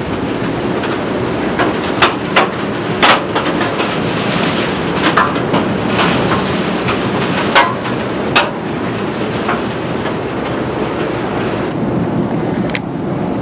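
Strong wind rushing over the microphone, with irregular sharp taps scattered through it, most of them in the first two-thirds and one more near the end.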